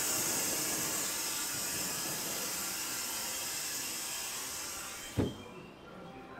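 Compressed air hissing from the joined ends of two coupled 285 series sleeper trains during uncoupling. The hiss fades out about five seconds in, with a single clunk at that point.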